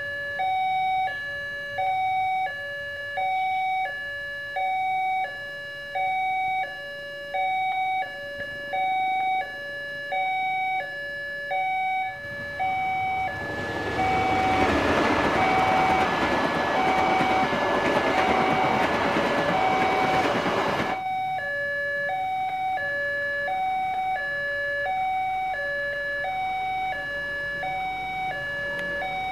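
Railway level-crossing warning alarm sounding its two-tone signal, a higher and a lower tone alternating about every 0.7 s, warning of a train at the crossing. A little before halfway a train passes. Its rumble and wheel noise swell over the alarm for about eight seconds and then cut off suddenly, while the alarm keeps alternating.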